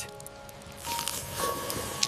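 Soft background music with gently held notes. A quiet hiss comes in about a second in.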